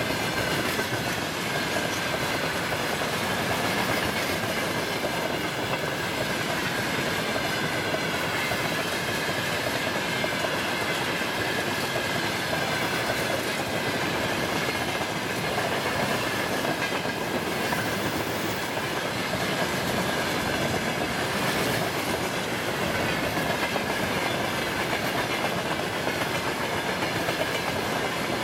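Tank wagons of a freight train rolling past, a continuous rumble and clatter of steel wheels on the rails, with a steady high tone running through it.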